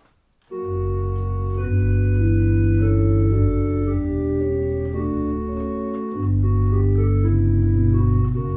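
Three-manual digital organ playing a melody on a quiet reed stop in the right hand over a soft accompaniment in the left hand and pedals. The playing starts about half a second in, with held chords and a deep pedal bass under the moving tune, and a short break in the bass near six seconds.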